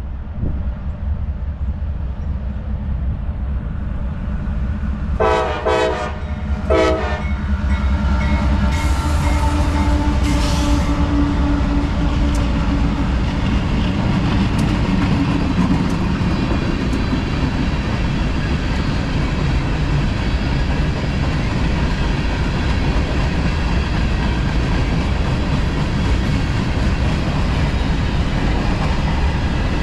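CSX freight train's diesel locomotives rumbling past, with three short horn blasts about five seconds in. Then comes the steady rolling rumble and clatter of the long manifest train's cars going by.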